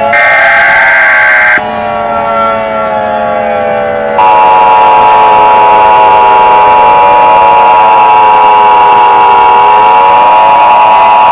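A wailing siren rising and falling slowly in pitch, overlaid with electronic alert tones: a high tone that cuts out after about a second and a half, then from about four seconds in a loud steady attention tone of the kind that opens an Emergency Alert System broadcast.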